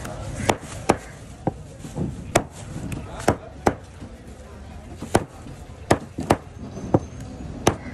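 A large broad-bladed knife chopping a yellowfin trevally into chunks on a wooden cutting board. There are about eleven sharp chops of the blade through the fish into the wood, at an uneven pace of one or two a second.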